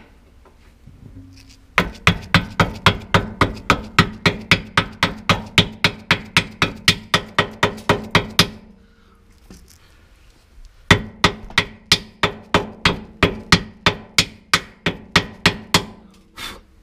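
Hammer rapidly striking a chilled solid cradle bushing mount to drive it up into a 5th-gen Camaro ZL1's subframe, about four blows a second. The blows come in two long runs with a pause of about two seconds between them.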